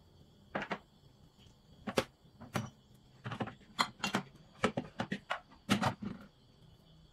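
Condiment bottles and storage containers being handled and set down in a refrigerator: a run of about a dozen irregular light knocks and clicks.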